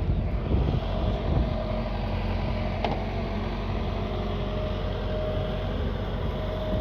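A machine engine running steadily with a low rumble and a steady hum, with a single short click about three seconds in.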